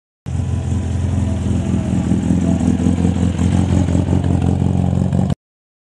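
Engine of a small open-top sports car running at a low, steady speed, with an even, pulsing exhaust note. It cuts in abruptly and cuts off abruptly.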